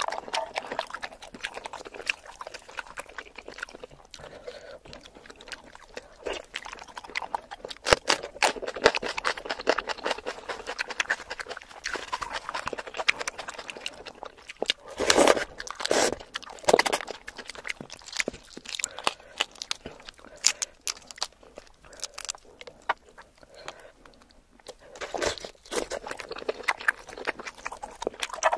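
Close-miked eating of a saucy seafood boil: chewing and biting with many small clicks and crackles as shrimp and scallop shells are handled. The loudest bursts of chewing come about halfway through and again near the end.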